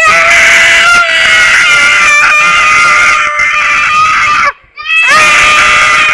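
Children screaming at full voice as a demonstration: two long, steady-pitched screams with a short break about four and a half seconds in.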